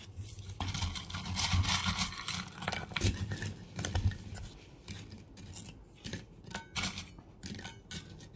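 Hands handling small objects close to the microphone: a stretch of rustling in the first two seconds or so, then scattered light clicks, taps and scrapes.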